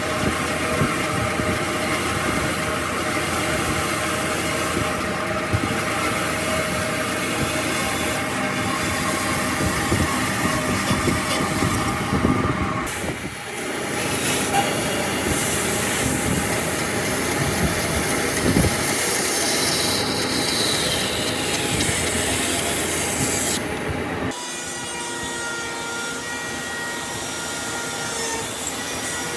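Electric power tools running on wood: a steady machine noise with a short break about 13 seconds in. Around 20 seconds in there is a whine that falls in pitch, and from about 24 seconds the sound goes quieter and steadier.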